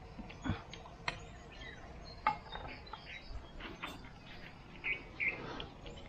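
Scattered knocks, scrapes and leaf rustles of a person climbing down through tree branches by hand and bare foot, with a couple of short chirps about five seconds in.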